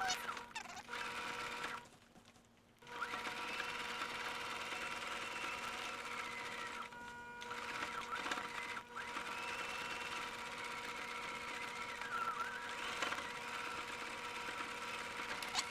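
Domestic electric sewing machine running steadily with a motor whine, stitching a wide zigzag through elastic and stretch-knit fabric. It stops for about a second near the start, then runs on with short slowdowns.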